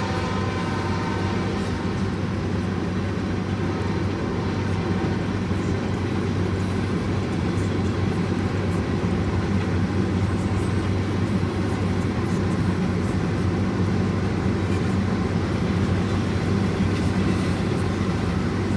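Loaded rock freight train rolling past: a steady low rumble of the train on the rails. A diesel locomotive horn dies away about a second in.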